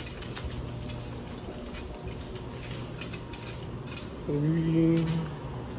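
Bicycle freewheel ratchet clicking steadily as the bike coasts. After about four seconds a low hum with a steady pitch sounds for about a second, louder than the clicking.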